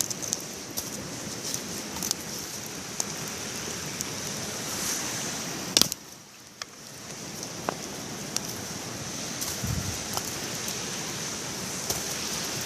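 Steady rushing of river water, with scattered sharp clicks and small crackles over it; the sound dips briefly about six seconds in.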